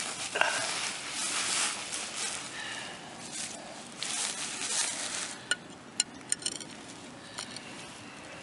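Scratchy scraping across a concrete paver stone in a few surges, then several light, sharp taps with a brief metallic ring as a steel chisel is set and tapped on the paver's scored line to split it.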